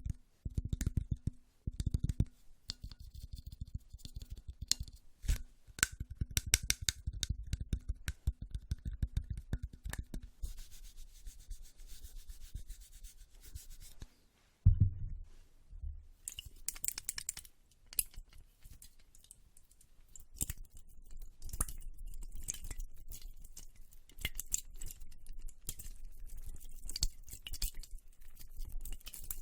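Close-miked ASMR triggers: rapid tapping for about the first ten seconds, then softer rubbing and scratching with one low thump about fifteen seconds in, followed by fast, crisp clicks and crackles.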